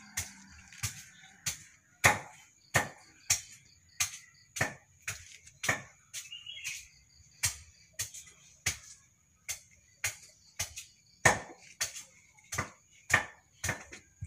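A run of sharp, irregular knocks or taps, about one or two a second, with a steady high-pitched whine behind them.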